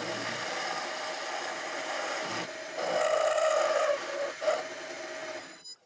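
Small metal lathe running while a ball-turning tool cuts a rounded end on a miniature engine con rod, giving a steady pitched whine that swells louder about three seconds in. The sound cuts off abruptly shortly before the end.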